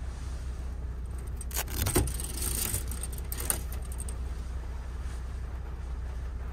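A steady low hum, with a brief bout of metallic jingling and clicks starting about a second and a half in and lasting about two seconds.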